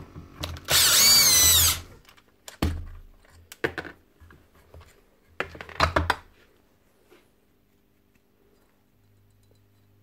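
Bosch cordless drill/driver whirring for about a second as it backs a screw out of a circular saw's gearbox cover, its pitch rising and then falling. Then come a few scattered clicks and knocks as the screws and the metal cover are handled, and it goes quiet near the end.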